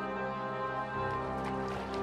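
Background music score with sustained chords; deeper notes swell in about a second in.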